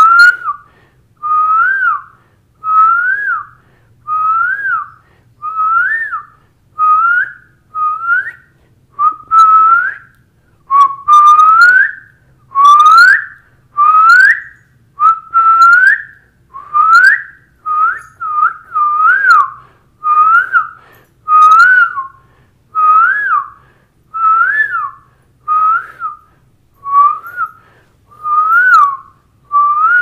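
A person whistling an imitation of the Asian koel's call: a single upward-sliding note that drops off at the end, repeated about once a second, with the notes longest and loudest in the middle stretch.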